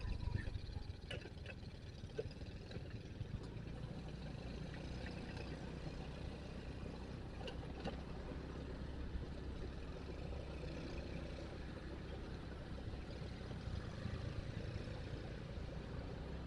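Motorcycle engine running steadily with a low rumble while riding, with a few faint clicks.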